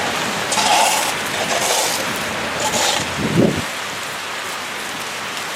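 Steady hissing noise of a slushy street in a snowstorm, with a few louder swishes in the first three seconds and a short low rumble about three and a half seconds in.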